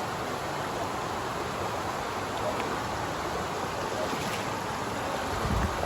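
Steady rush of running water at a dam. A few low wind buffets hit the microphone near the end.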